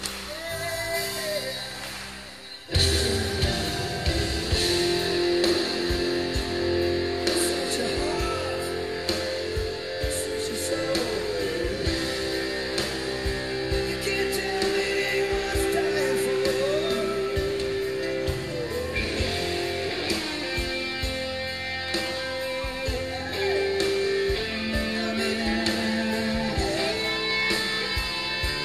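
Background music: a rock song with guitar and singing. It comes in loud about three seconds in after a quieter opening.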